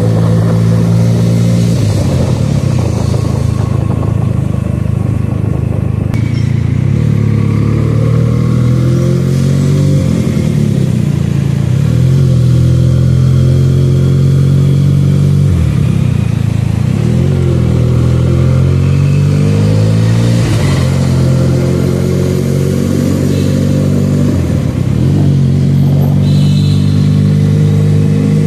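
Benelli 300's parallel-twin engine running under way, heard from the rider's seat. The revs climb under throttle and drop sharply about four times, then pick up again.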